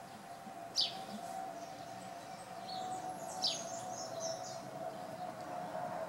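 Small birds chirping: a sharp high chirp about a second in, another around the middle with a short run of twittering notes, over a steady faint background tone.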